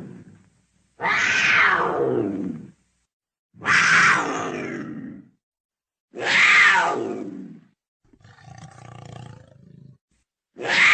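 Wild cat calling: a series of long yowling calls, each sliding down in pitch over about a second and a half, repeating every two to three seconds. A quieter, lower sound comes between the last two calls.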